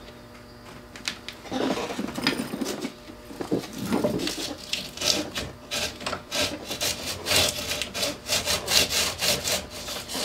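Sandpaper rubbed by hand around the butt section of a surf rod blank, cleaning off leftover epoxy and tape and roughing the surface before new reel-seat bushings are built up. The back-and-forth rubbing strokes start about a second and a half in and become quicker and more regular toward the end.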